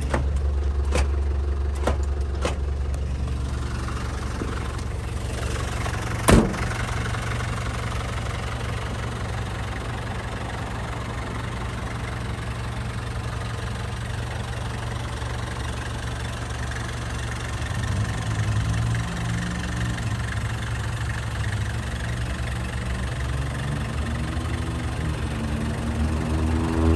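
1992 Nissan Caravan's TD27 2.7-litre four-cylinder diesel idling steadily. A few light clicks come in the first seconds, and one loud thump about six seconds in.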